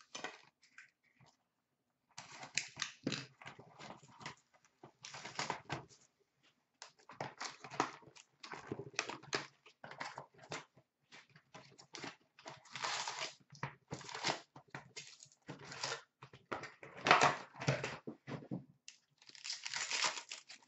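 Hockey card packs being taken from a cardboard hobby box and their wrappers torn open and crinkled: a string of rustling, crinkling bursts with short gaps, then cards being handled near the end.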